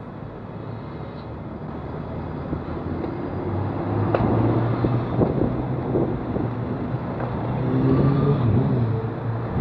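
Road traffic heard from a moving bicycle: vehicle engines running close by, a low hum that grows louder about four seconds in and wavers in pitch near the end.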